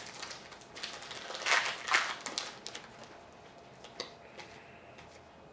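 Trading cards being handled and flipped through by hand: card stock sliding and rustling with light clicks, loudest between about a second and a half and two seconds in, and a short tap about four seconds in.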